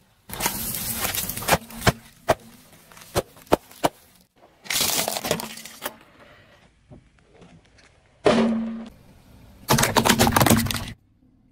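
Car tyres rolling over and crushing small objects, hard plastic among them: several separate bursts of crunching and crackling, with single sharp snaps in between.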